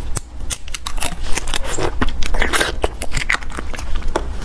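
Close-miked crackling and clicking as a small plastic jelly cup is peeled open, and the jelly is bitten and chewed. There are many quick, irregular clicks throughout.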